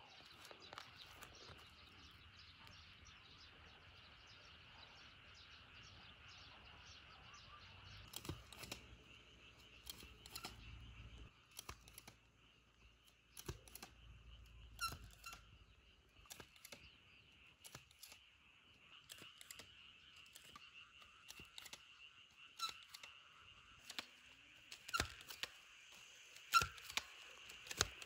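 Faint outdoor field ambience: a steady high-pitched hum, with scattered sharp clicks and taps from about eight seconds in.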